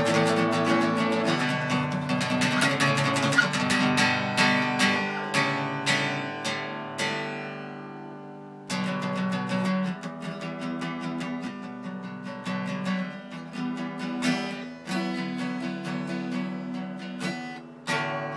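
Acoustic guitar being strummed, a run of chords. About halfway through, one chord is left to ring and die away, then the strumming starts again abruptly.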